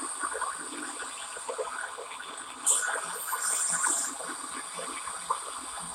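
Handheld gas torch burning with a steady hiss and an irregular sputtering crackle, the bottle laid on its side; the user puts the trouble down to gases coming up from the laid-down bottle. A sharp click comes about two and a half seconds in, then a brighter hiss for about a second.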